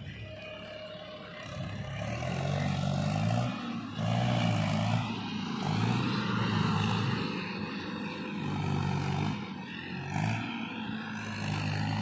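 Mahindra tractor's diesel engine revving up and down in surges as its hydraulics tip the trailer to dump a load of mud.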